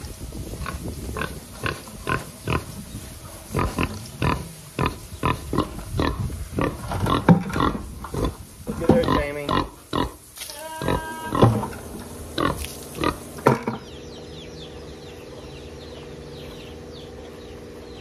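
Pigs grunting and squealing close by, mixed with the knocks of plastic buckets being pulled apart and tossed aside. About fourteen seconds in, this cuts off to a steady low hum.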